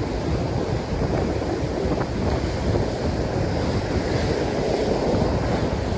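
Surf breaking and washing up the beach in a steady rush, with wind buffeting the microphone.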